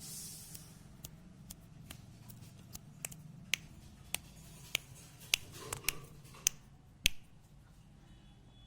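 Irregular sharp clicks and taps, roughly one or two a second, over a faint steady low hum.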